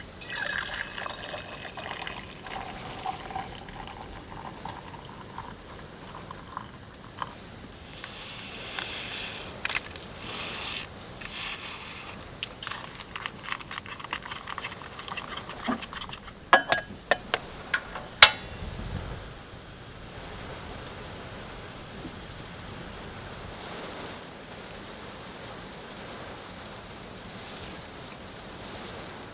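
Liquid pouring near the start, its pitch sliding down, then clinks and handling clatter with a few sharp clicks and a dull thud. It settles into a steady hiss.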